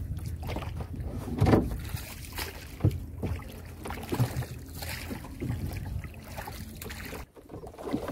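Gill net being hauled in by hand over the side of a small boat: handling noise and several sharp knocks over a steady low rumble.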